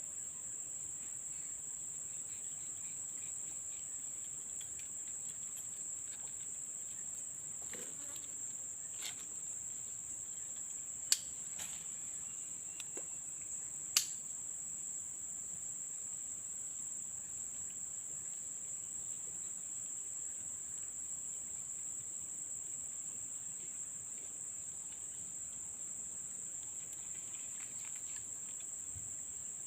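A steady, high-pitched insect chorus of crickets trilling. Two sharp clicks stand out, about eleven and fourteen seconds in.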